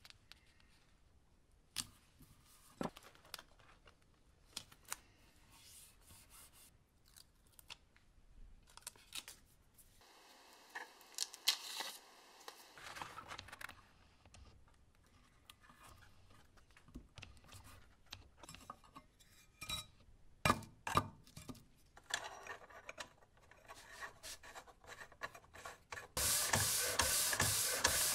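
Scattered workshop handling sounds: light clicks, taps and short scrapes as an aluminium guide bar and sandpaper are set up on a granite slab, with a longer rubbing stretch partway through. About 26 seconds in, a steady, louder sanding sound starts with a fast even pulse: a metal hand plane body sliding on sandpaper on the grinding table.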